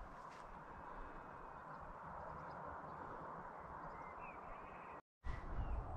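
Faint steady outdoor wind noise with a few brief bird chirps about four seconds in. After a short dropout near the end, a louder low wind rumble buffets the microphone.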